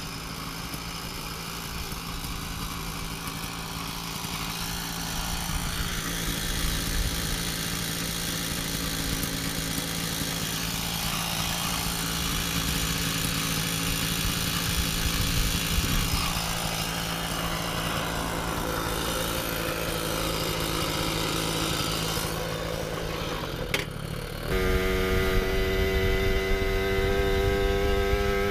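A steady engine hum with noise, then a sudden change near the end to the modded Puch Maxi moped's two-stroke engine running under way, louder, through its chambered expansion pipe, its pitch rising slowly.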